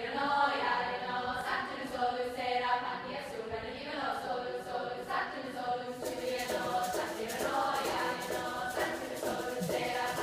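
High school mixed choir singing, the voices holding and moving between sung notes.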